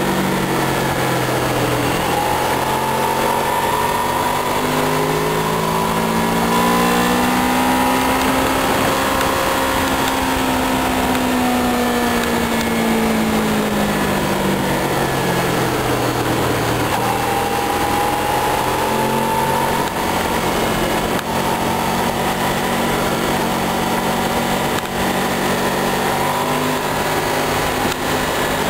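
Honda VFR800 Interceptor's V4 engine running at road speed, its pitch rising and falling gently with the throttle, under a steady rush of wind noise.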